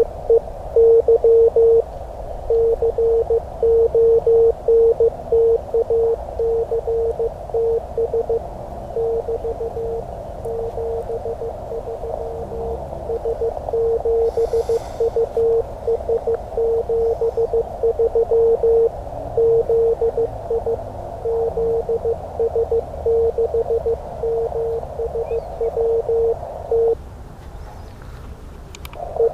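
Morse code (CW) from an amateur radio transceiver's speaker: a single steady mid-pitched tone keyed in dots and dashes over receiver hiss. The keying stops about two seconds before the end.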